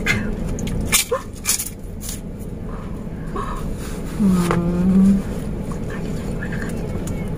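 A hummed, drawn-out "mmm" from a voice, about a second long and steady in pitch, some four seconds in, over a steady low hum inside the car; a few light clicks come in the first two seconds.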